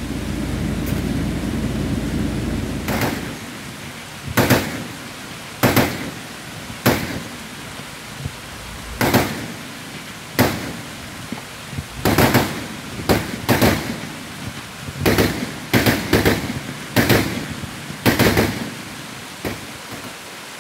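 Vehicle-mounted heavy machine guns of the Browning M2 .50-calibre type firing single shots and short bursts of two or three, each crack trailing an echo. Steady rain hiss underneath, and a low rumble in the first few seconds.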